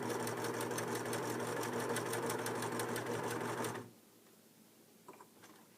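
Singer 4562T sewing machine running at speed, sewing a dense decorative stitch with a rapid, even needle rhythm, then stopping abruptly about four seconds in.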